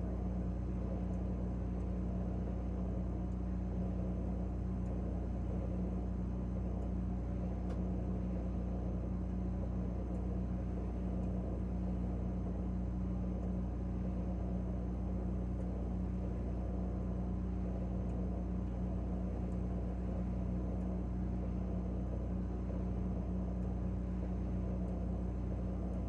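A refrigerator running, heard from inside the closed fridge: a steady low mechanical hum made of a few constant low tones.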